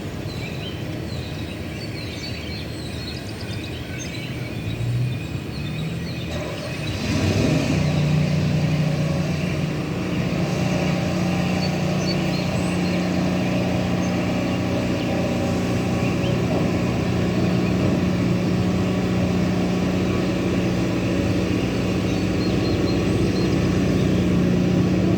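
Diesel locomotive engine running with a steady low drone as a train passes, coming in about seven seconds in and holding; faint chirps before it.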